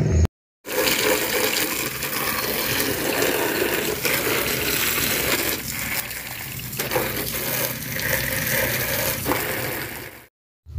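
Water from a garden hose spraying onto and splashing off black textured plastic motorcycle body panels, a steady rushing hiss with a couple of brief knocks. It starts just after a short gap and cuts off just before the end.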